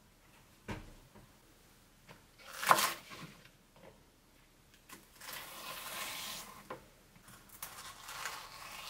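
Knife cutting large green onion stalks on a wooden cutting board. A sharp knock comes a little under three seconds in, and longer crisp slicing sounds follow in the second half.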